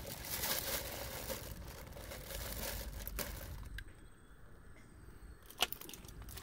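Plastic bags crinkling and rustling as a hand rummages in a bucket, for about the first three and a half seconds. After that it is quieter, with a few light clicks and one sharp click near the end.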